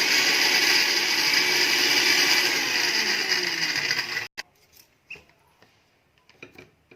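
Electric mixer grinder running loaded with chopped ginger in its jar, grinding it to a fine paste; the motor's pitch sinks a little and it cuts off abruptly about four seconds in, followed by a few faint clicks.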